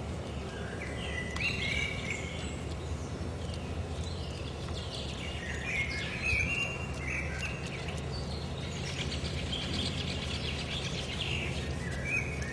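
Birds singing outdoors in repeated short chirping phrases, over a steady low background rumble.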